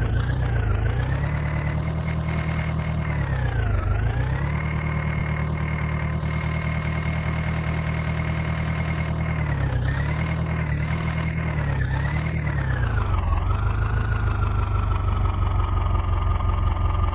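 Diesel engine of the machinery at a soil-loading job running at working speed. Its pitch dips and recovers briefly about four, ten and twelve seconds in, then settles at a lower, steady speed for the last few seconds.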